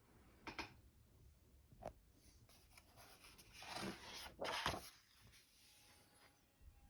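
Faint rustle and handling of paper book pages, with a few light taps and one soft scraping sweep a little past halfway.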